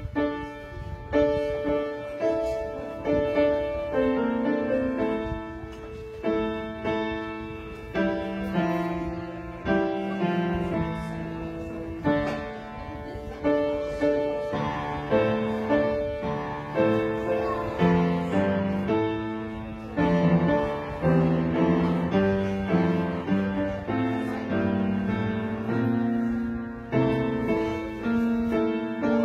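Upright piano playing a slow postlude in chords, each note struck and then fading: the closing music that ends the service.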